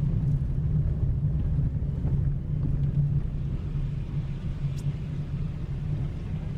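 Car driving along a road: a steady low engine and road rumble with a constant hum.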